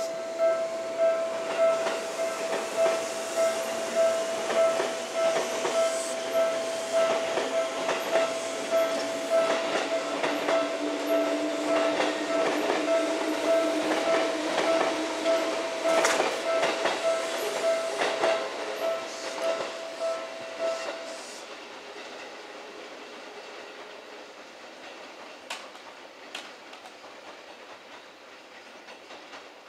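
Railway level-crossing bell dinging in a steady rhythm while a Seibu 4000 series electric train clatters over the points, its wheels clacking on the rail joints and its motor hum rising in pitch. The bell stops about two-thirds of the way through, leaving faint outdoor noise.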